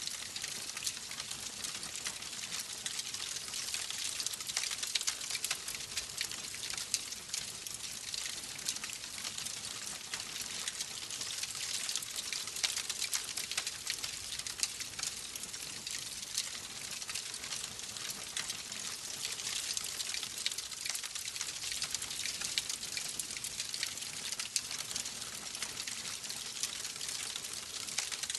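Wood fire in a fireplace crackling: a steady high hiss full of many small, sharp pops and crackles.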